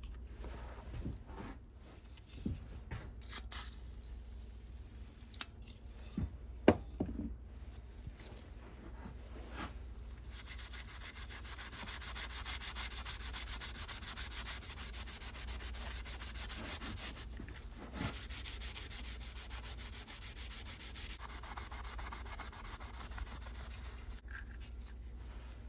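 Sandpaper scrubbing the steel blade of a leather splitter to take off rust and old finish: a steady rasping with a short break, preceded by a few scattered knocks and clicks.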